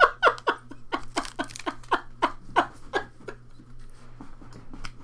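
A person laughing hard in a run of breathy 'ha' bursts, about three a second, dying away a little over three seconds in.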